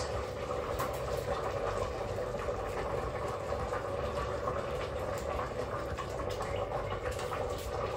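Water and chicken broth boiling steadily in a Crockpot Express multicooker's pot on the sauté setting, with a few faint clicks.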